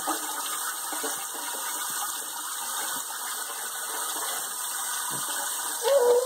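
Kitchen sink faucet spraying steadily into a sink full of bathwater, with light splashes from a baby's hands. A voice is heard briefly near the end.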